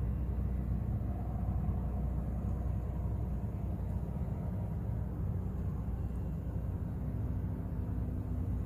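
Steady low rumble of distant city traffic heard from high above the streets.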